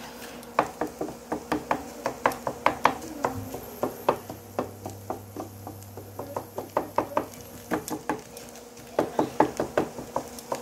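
A wooden spatula chopping and scraping fried eggs on a flat dosa tawa, breaking them into scrambled bits. It makes a string of sharp taps, a few a second, with a short pause about eight seconds in.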